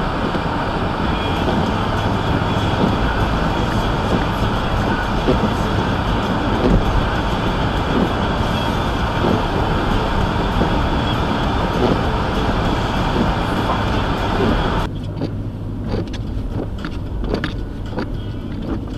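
A car driving on a snowy road, with a steady low rumble under a loud rushing hiss. About fifteen seconds in, the hiss cuts off suddenly, leaving the low rumble and scattered clicks.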